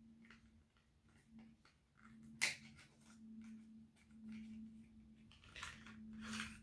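Quiet handling of perfume boxes and packaging: faint rustles and light clicks, with one sharp click about two and a half seconds in, over a faint steady hum.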